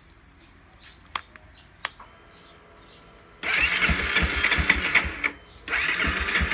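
Two sharp clicks, then the electric starter cranking the single-cylinder engine of a 2017 Honda CRF250 Rally in two attempts, with a short break between them. The engine is not catching after cutting out: the owner has checked that it is in neutral and has fuel.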